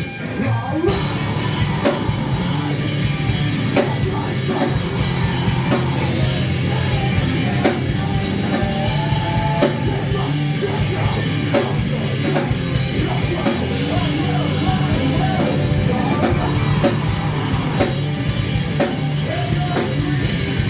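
Live rock band playing loudly, with a pounding drum kit and distorted guitars filling the sound; the highs drop out briefly right at the start before the full band comes back in.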